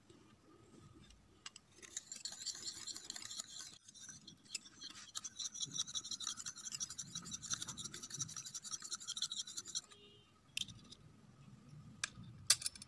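Miniature wire whisk beating egg in a tiny bowl: rapid scratchy scraping strokes, with a short break partway through. The whisking stops, and a few sharp clicks follow near the end.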